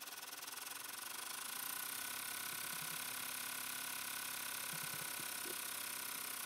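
Baby Lock Enterprise multi-needle embroidery machine running, stitching rapidly and steadily; it gets a little louder about a second and a half in.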